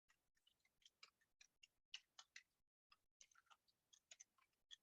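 Faint computer keyboard typing: quick, irregular key clicks as a short text remark is entered.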